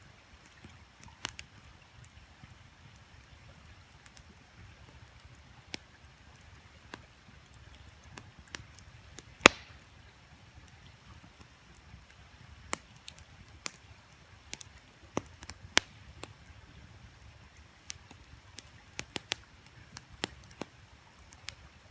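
Wood campfire crackling: irregular sharp pops and snaps, with one much louder pop about halfway through.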